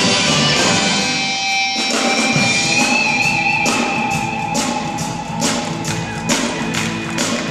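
Live performance of electric and acoustic guitars with a symphony orchestra's strings. A long high note is held from about two seconds in, and regular percussion hits, about two or three a second, come in over the second half.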